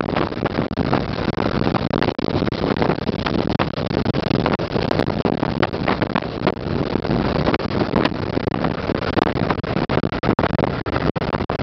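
Loud, steady road and wind noise from a moving car, with brief dips and gusts.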